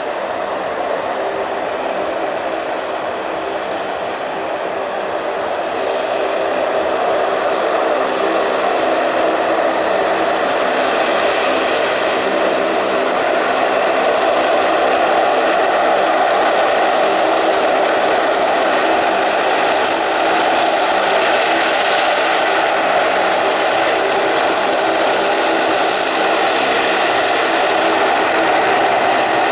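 Lockheed C-130H-30 Hercules' four Allison T56 turboprop engines running as the aircraft taxis: a steady propeller drone under a high turbine whine. It grows louder over the first half as the aircraft draws nearer.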